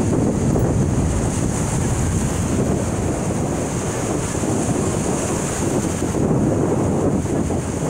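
Small surf waves breaking and washing up a sandy beach, with wind blowing across the microphone as a steady low rumble.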